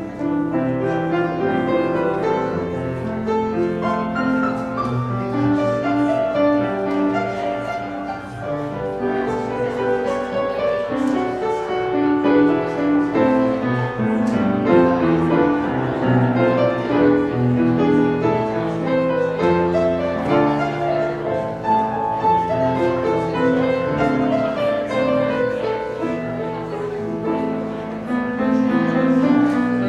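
A grand piano played solo, a continuous flow of notes with no break.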